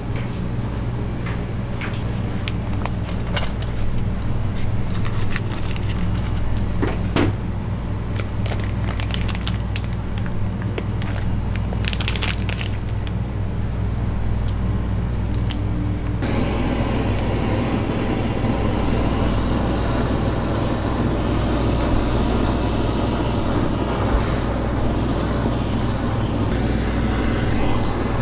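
Steady low machine hum with scattered clicks and crinkles as dried mullet roe is handled in its plastic packaging. About halfway through, the steady hiss of a handheld gas blowtorch takes over as its flame grills the roe.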